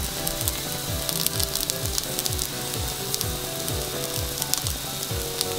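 Slices of kabocha squash, eggplant and okra sizzling in a frying pan, with scattered crackles. Background music with a steady beat plays underneath.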